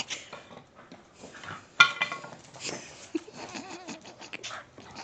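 A canine vocalizing in short, scattered whines and yelps, with a wavering pitched call a little past the middle.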